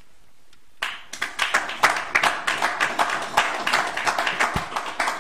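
Audience applauding: clapping breaks out about a second in and carries on until near the end.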